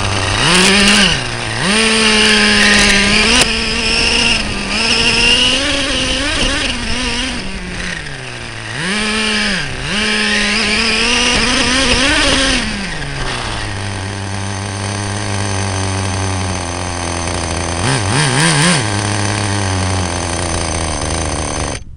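Acme Conquistador RC monster truck's two-stroke nitro engine, heard close up from an onboard camera, revving up and down repeatedly as it drives, then dropping to a steady idle about halfway through, with a brief burst of revs near the end. The engine has a damaged exhaust.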